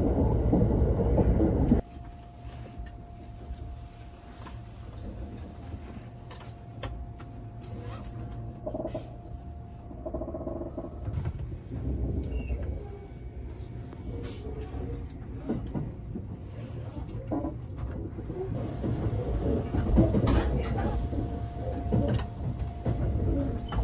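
Loud running noise of the Thunderbird limited express train for about the first two seconds, then a quieter carriage hum with a faint steady tone, over which a metal seat footrest is handled, giving scattered light clicks and clacks.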